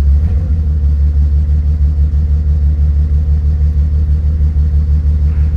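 1988 Jeep Cherokee XJ engine idling roughly, a steady low drone with a quick, slightly uneven pulse in its loudness.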